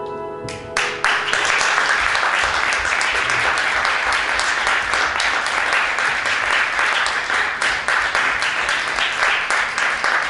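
The last chord of a concert cimbalom rings briefly and is damped off about half a second in. An audience then applauds steadily.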